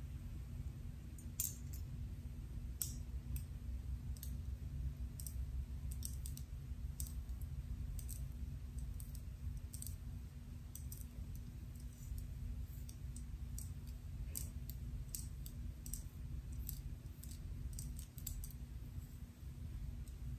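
Long fingernails scratching through short hair on the scalp: a string of irregular crisp scratches and ticks, over a steady low hum.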